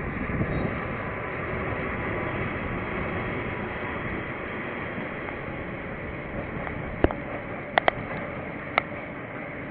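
Steady rumbling noise of a passing train, picked up by a security camera's microphone, with a sharp click about seven seconds in and three more over the next two seconds.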